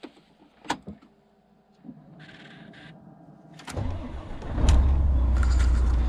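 A few sharp clicks, then the Volvo FH12 truck's diesel engine is cranked and fires about four seconds in, settling into a steady, loud low idle.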